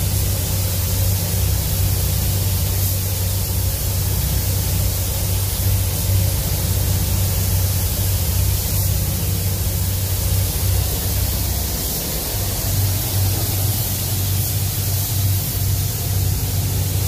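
Compressed-air spray gun hissing steadily as 2K clearcoat is sprayed onto a car panel, over a steady low hum from the spray booth's ventilation.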